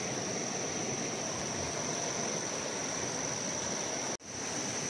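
Steady rush of a fast-flowing, rain-swollen river, with a steady high-pitched insect drone over it. The sound cuts out for an instant about four seconds in.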